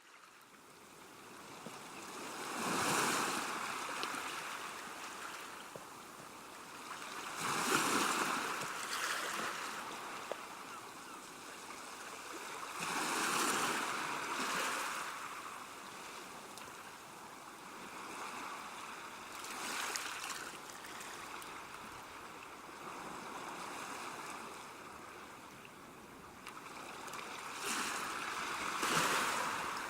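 Sea waves breaking on the shore and washing back, swelling into a louder surge roughly every five to six seconds.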